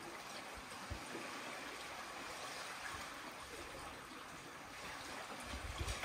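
Small waves lapping and washing softly on a sandy beach in a calm cove, a steady hiss of water. A low rumble comes in near the end.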